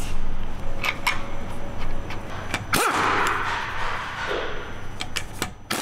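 A few sharp metallic clicks of parts and bolts being handled, then a pneumatic impact wrench runs in a short burst under the car about three seconds in, sweeping quickly down and up in pitch before running on briefly.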